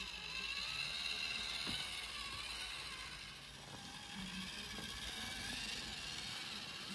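Toy tractor's small electric motor and plastic gearbox whirring steadily as it drives along pulling a loaded trailer.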